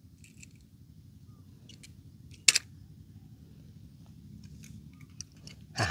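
Light clicks and taps of die-cast metal toy cars being handled, with one sharp click about two and a half seconds in, over a faint low rumble.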